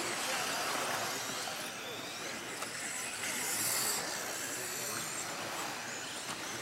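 1/10-scale two-wheel-drive electric RC buggy with a modified-class brushless motor running on a dirt track: the motor whines up and down under a constant hiss of tyres on dirt. A louder hiss comes a little past the middle.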